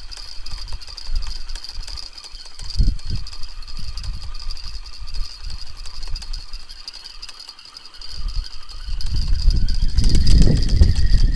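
Strong wind buffeting the microphone: a gusty low rumble that grows louder and more constant about eight seconds in.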